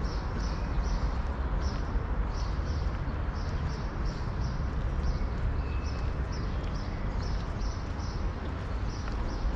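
Footsteps of a person walking on stone paving: a steady, even series of short taps over a low, steady rumble.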